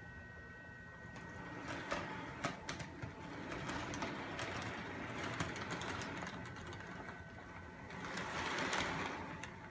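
Polar Express model train locomotive running along sectional track: a small electric motor and gears whirring, with scattered clicks and rattles. It grows louder about a second in and is loudest near the end.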